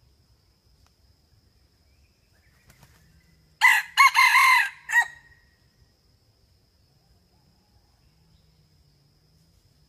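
Red junglefowl rooster crowing once about three and a half seconds in: a short crow of a few linked notes ending in a brief clipped final note.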